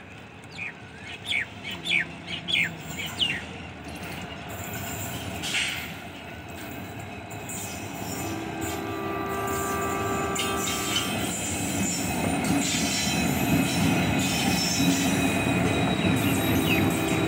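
WDP4D diesel-electric locomotive, with its EMD 710-series two-stroke diesel engine, hauling passenger coaches as it approaches and passes. The engine and wheel noise grow steadily louder through the second half. There are a few short high chirps in the first few seconds.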